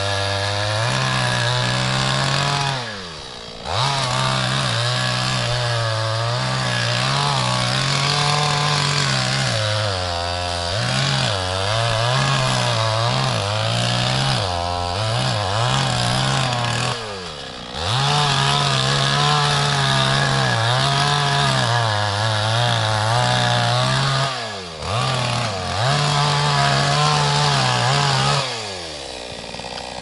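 Chainsaw cutting wood, its engine note wavering as the chain bites and eases, with a few brief drops in speed. Near the end the throttle is released and the saw falls back to idle.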